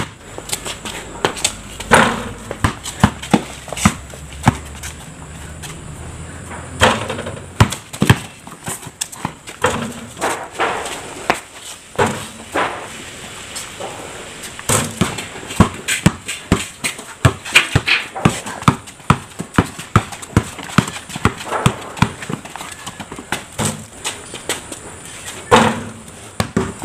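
Basketball bouncing on a concrete court as it is dribbled: sharp thuds in quick runs, broken by short pauses.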